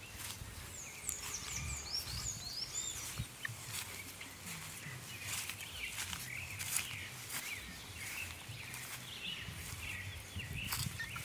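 Helmeted guineafowl keets giving short, high peeping calls, many of them overlapping, with footsteps rustling through grass.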